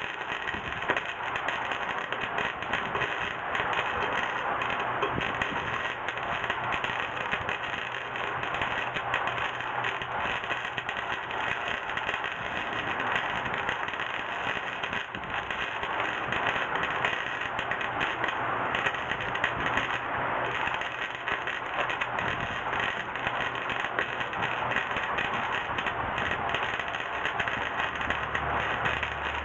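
Electric arc welder crackling steadily as it welds over a hole in a motorcycle muffler, an irregular dense frying crackle with no pauses.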